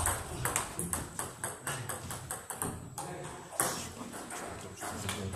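Table tennis rally: the ball clicks back and forth in quick alternation between the bats and the table, several sharp ticks a second, before the point ends a little past halfway.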